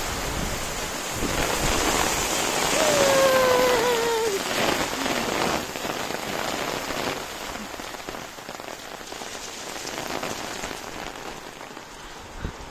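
Heavy rain falling steadily, loudest in the first few seconds and easing off through the second half.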